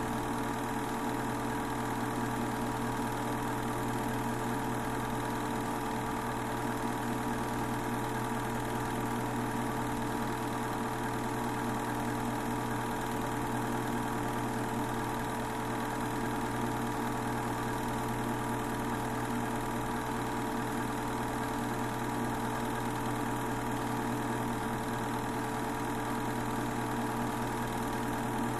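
Steady, unchanging hum and whir of a Super 8 film projector's motor and fan running, picked up by the camcorder that filmed the projection.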